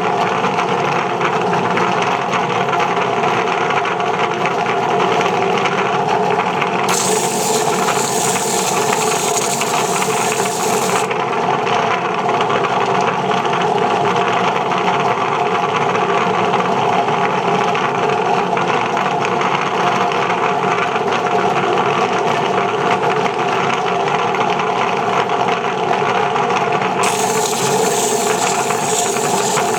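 Concrete heart pendants being wet-sanded, apparently on a spinning sanding disc: a steady grinding rub over a constant hum. A harsher, hissier scraping comes in from about seven to eleven seconds, and again near the end.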